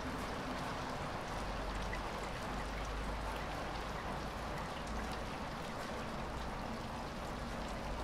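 Light rain falling steadily: an even hiss of rainfall with many small scattered drop ticks.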